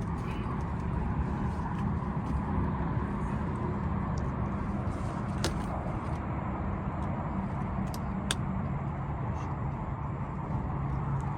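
An engine running steadily with a low, even hum; a few sharp clicks come through about halfway in and again about two-thirds of the way in.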